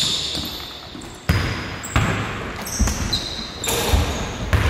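A basketball bounces several times on a hardwood gym floor and rings in the large hall, with short high squeaks of sneakers on the wood.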